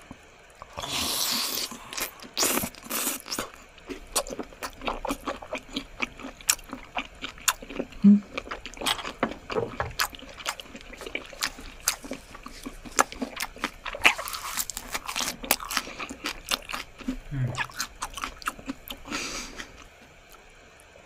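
Close-miked eating sounds of raw squid being bitten and chewed: rapid, irregular wet clicks and smacks, with a longer hissing sound about a second in and again near the end.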